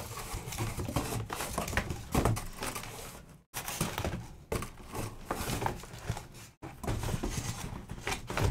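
Handling of a cardboard shipping case of card boxes: irregular rustling, scraping and light knocks of cardboard. The sound cuts out briefly twice.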